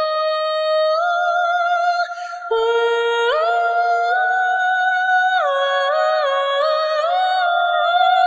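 A male singer's high, clear voice holding long sustained notes, stepping and gliding smoothly from one pitch to the next, with a brief break about two and a half seconds in.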